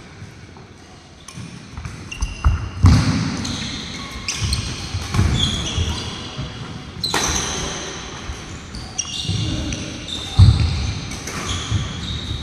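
Badminton rally on a wooden court: sharp racket strikes on a nylon shuttlecock, heavy footfalls and short squeaks of shoes on the floor, echoing in a large hall. It starts about a second and a half in; the loudest thuds come about three seconds in and again near ten seconds.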